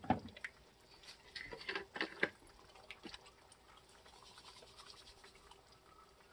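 Eggs frying in hot oil in a cast iron skillet: faint, scattered crackles and pops, busiest in the first couple of seconds, then sparse.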